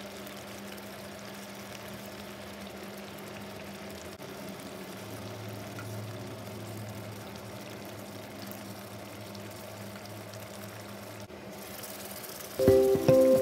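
Spicy-sweet chilli sambal with fried fish simmering and bubbling in a wok, a steady watery bubbling over a low hum; it is being cooked down until the oil separates out. Loud music with a beat cuts in near the end.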